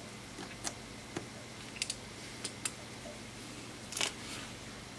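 Small tools and parts clicking and tapping against an iPhone 6S's frame as its new charging-port flex and brackets are fitted: a handful of light, sharp clicks spread out, the loudest about four seconds in.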